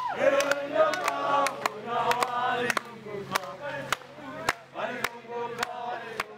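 A group of voices singing together in a chant-like song, with steady hand clapping at about two to three claps a second; it gets quieter over the second half.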